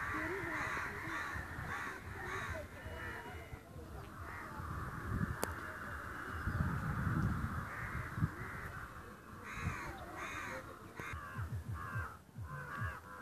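Birds calling with repeated harsh calls, several a second, clustered near the start and again in the last few seconds, with a steadier chorus in between. Uneven low rumbling noise runs underneath, and there is one sharp click about five and a half seconds in.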